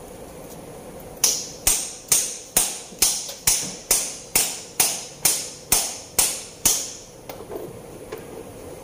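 A hammer striking metal about a dozen times at an even pace of roughly two blows a second, each blow sharp and ringing briefly, starting about a second in and stopping near the end.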